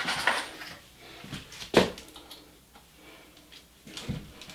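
Handling noise while another drywall screw is readied on the drill: a few scattered clicks and knocks, the sharpest a little under two seconds in, with a small-room echo.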